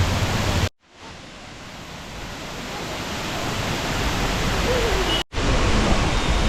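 Waterfall rushing in a steady roar of falling water. It cuts out abruptly about a second in and fades gradually back up, then drops out again for an instant a little after five seconds.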